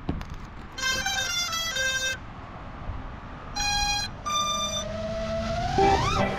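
FPV quadcopter's brushless motors beeping through the BLHeli_32 ESC as the new LiPo is plugged in: a quick run of stepped startup tones, then two separate beeps. Near the end the motors spin up with a whine that rises sharply in pitch.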